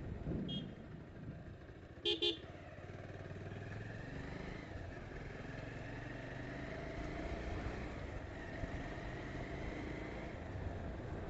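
Motorcycle riding along a road, engine and road noise running steadily; a vehicle horn beeps twice in quick succession about two seconds in.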